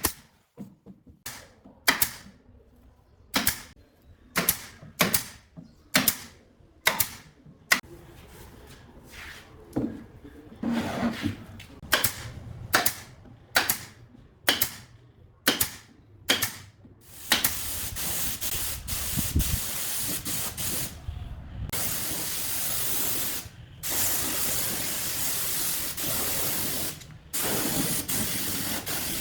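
A run of sharp knocks, about one a second, then from about two-thirds of the way in a pneumatic spray gun hissing in long bursts with brief breaks.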